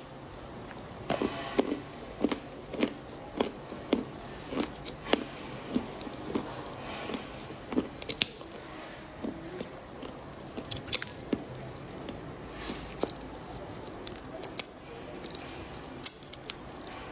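Hard dark chocolate being bitten and chewed close to the microphone: sharp crunches and cracks at irregular intervals, about one or two a second.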